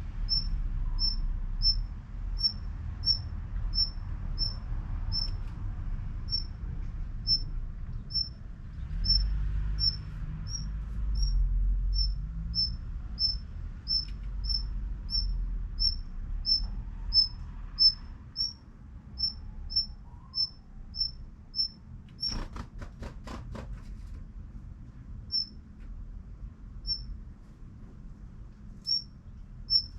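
Daurian redstart calling with short, thin, high chips, about two a second in a steady string, then only a few spaced out near the end. About two-thirds of the way in comes a quick run of about five sharp taps. A low rumble sits underneath.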